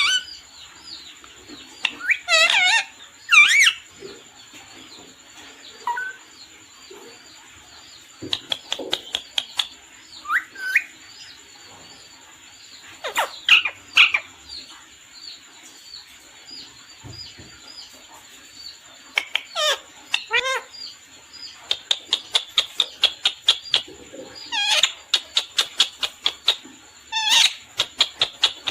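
Pet parrot calling: scattered screechy calls and whistled glides that rise and fall in pitch, then in the last third a rapid run of short chirps, several a second.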